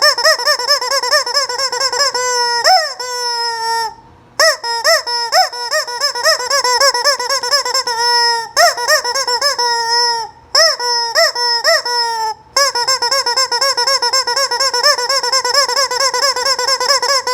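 Noise-making toy chicken letting out long, warbling squeaky calls, one after another. They break off briefly about four seconds in and again around ten and twelve seconds.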